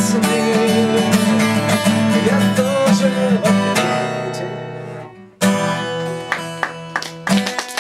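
Steel-string acoustic guitar strumming the closing chords of a song. The playing fades away about four seconds in, then one last strummed chord rings out, and hand clapping starts right at the end.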